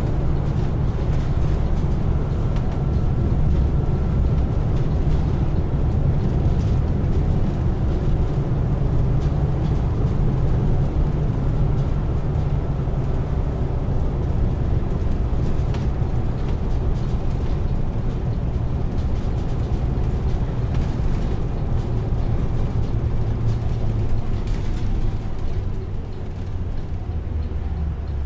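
Diesel engine running steadily with a deep, continuous rumble, dropping slightly in level near the end.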